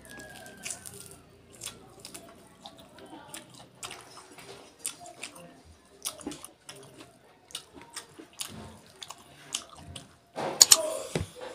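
Close-miked wet chewing and lip smacking from a person eating duck curry and rice by hand: a steady scatter of sticky, wet clicks. A louder, longer mouth sound comes near the end.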